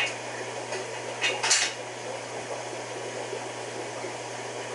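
Brief metallic clinks from steel rack pieces being handled and squared for tack welding: one at the start and two close together about a second and a half in, the second a little longer. Under them runs a steady hum and hiss of running ventilation fans.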